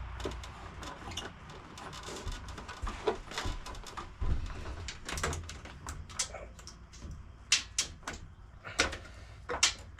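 Scattered sharp clicks and knocks of plastic and metal parts being handled on a scooter's handlebar and under-cowl while the throttle cable is worked loose. A few louder snaps come near the end, as a part pops out.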